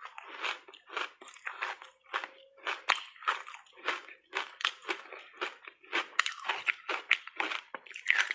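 Reshaped ice coated in matcha powder being bitten and chewed in big bites: a rapid run of crisp crunches, about two to three a second.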